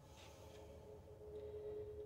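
A faint, steady, high-pitched held tone that grows a little louder about a second in, over low room hum.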